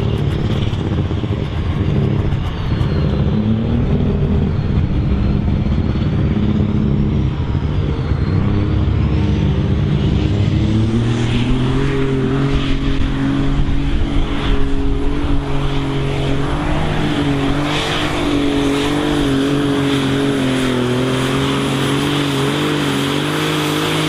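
Super Stock pulling tractor's turbocharged diesel engine at full throttle under load during a pull, with a thin high whine over it. The engine note climbs about ten seconds in and holds high, and it cuts off suddenly at the end.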